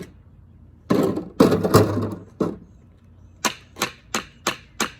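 Hockey stick being struck on the ground: a noisy clatter about a second in, then a steady run of sharp cracks, about three a second.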